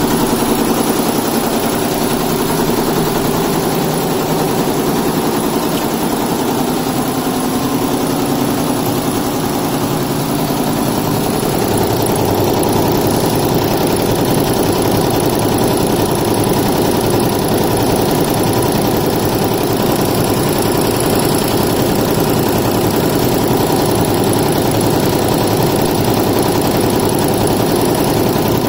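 Multi-head Yonthin embroidery machine running, its needle heads stitching in a fast, steady mechanical rhythm. The tone of the machine shifts slightly about twelve seconds in.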